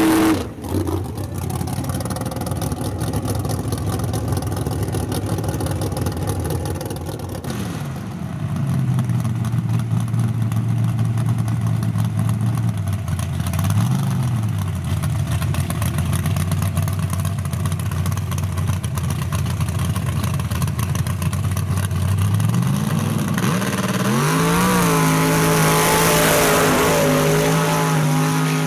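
Mud trucks' engines running and revving hard. The engine pitch holds steady for stretches, briefly rises and falls, then climbs to a high held pitch near the end.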